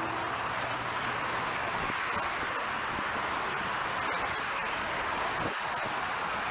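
Steady rush of highway traffic passing close by.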